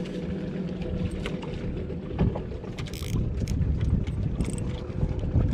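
A small boat's engine running steadily at low revs, with wind on the microphone and a few light clicks and knocks from fishing tackle being handled.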